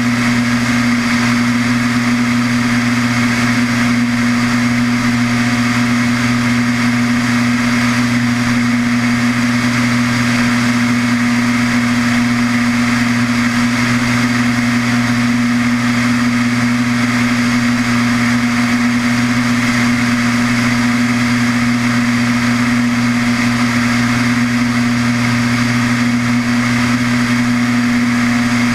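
Light aircraft's piston engine and propeller droning steadily in flight, with a constant low hum and wind rush over the outside-mounted camera.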